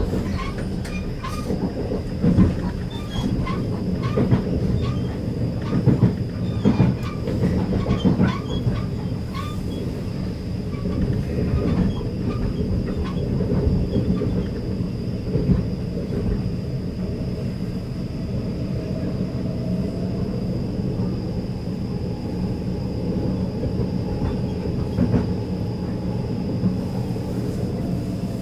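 Cabin noise of a moving electric commuter train: a steady low rumble of the running train, with frequent knocks from the wheels over the track in the first half that thin out later, and a faint steady high whine.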